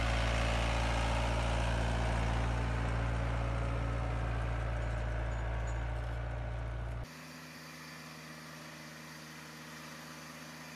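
A compact tractor's engine running steadily while it pulls a mouldboard plough through turf. About seven seconds in the sound cuts abruptly to a quieter recording of another small tractor engine running.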